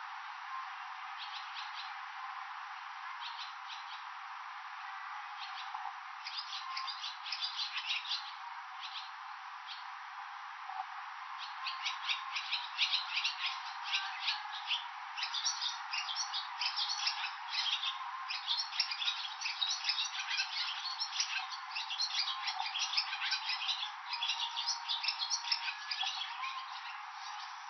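Barn swallow twittering: a few scattered chirps at first, then, from a little under halfway through, a long, fast run of chirps and warbling notes.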